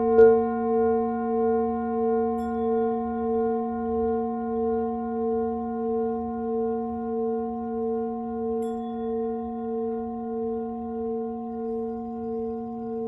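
Large brass singing bowl ringing on after a strike, a low hum with a slow, even wobble that fades gradually. Faint light ticks come about two and a half seconds in and again near nine seconds.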